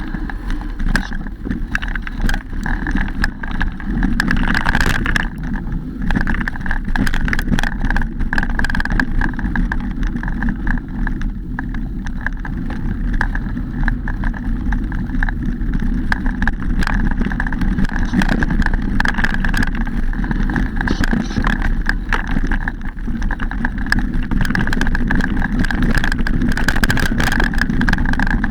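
Mountain bike riding over a rough dirt trail: a steady rumble of tyres and wind on the microphone, with frequent rattles and clicks from the bike.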